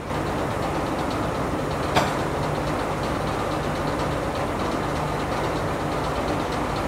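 Steady machine noise: a low hum with a fast, even ticking, running throughout, and one sharp knock about two seconds in.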